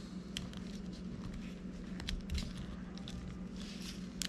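Small scattered clicks and rustles of wires and a plastic connector being handled and pushed into a lithium battery's BMS board, with a sharper click near the end. The BMS takes the connection without popping. A steady low hum sits underneath.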